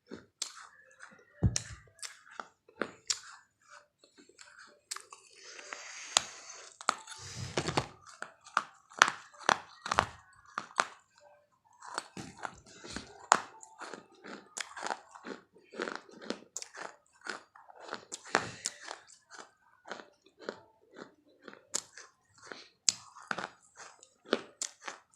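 Someone chewing crunchy food: an irregular run of crisp crunches and bites, two or three a second, with a short hissy stretch partway through.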